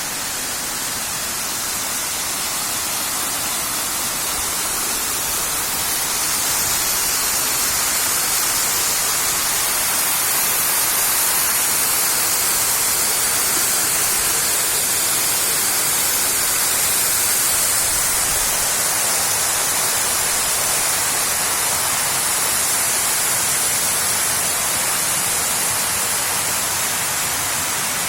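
Water falling over park waterfalls: a steady, even rush of water, a little louder from about six seconds in.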